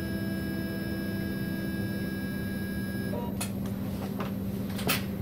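Hyrel 3D printer running a print move: a steady hum from its motors and fan, with several steady tones that stop abruptly about three seconds in. A few sharp clicks follow near the end.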